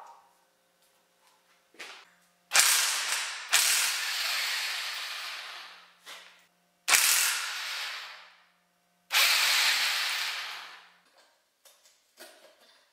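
Four loud bursts from a power tool undoing bolts on a Toyota 2JZ engine, each starting sharply and trailing off over a second or two, with a few light clicks between them.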